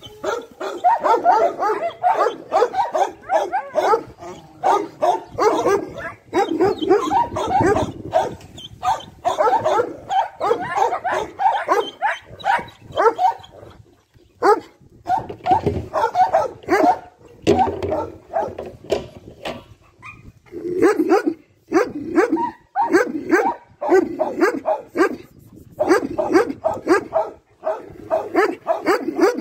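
Several dogs barking in quick, overlapping runs, with brief lulls about halfway through and again about two-thirds through.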